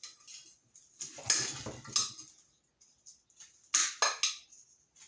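Metal compressor parts clinking and clattering as they are handled during dismantling: a rattle about a second in, then a few sharp clanks near four seconds.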